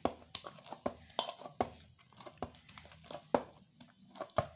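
Hands pressing and turning an oil-coated ball of dough in a stainless steel bowl: irregular short smacks and clicks, a few each second.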